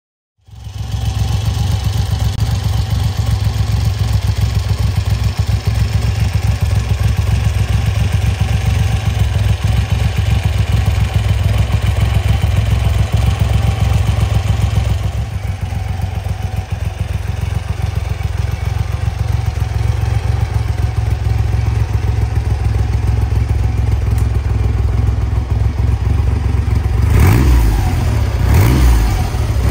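Triumph Trident T150's three-cylinder engine idling steadily through its chrome silencers, then revved twice near the end.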